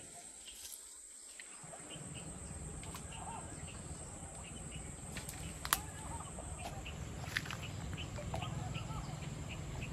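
Insects and birds calling: a steady high insect whine with small repeated chirps and faint warbling calls, over a low steady rumble. A sharp click sounds about six seconds in.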